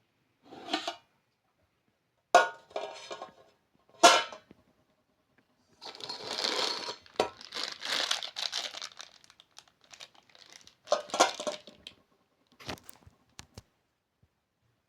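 Intermittent crinkling and rustling handling noise with a few sharp knocks, one of which rings briefly; the busiest stretch is in the middle.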